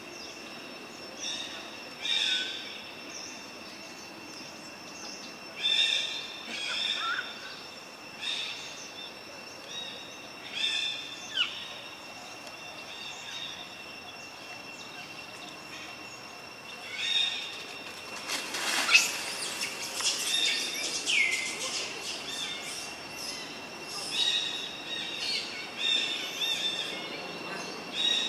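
Forest birds calling in short bursts every few seconds, one call ending in a quick downward glide, over a steady high-pitched insect drone; the calls come thicker and louder about two-thirds of the way through.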